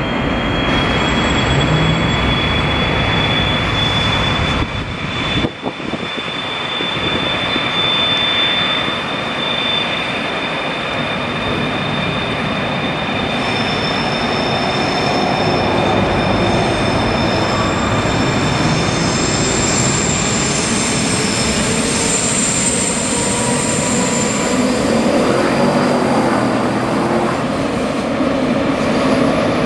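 Passenger train wheels squealing on curved track over the rumble of a train rolling slowly. A long, steady high squeal holds for much of the time, and higher squeal tones join it from about halfway through.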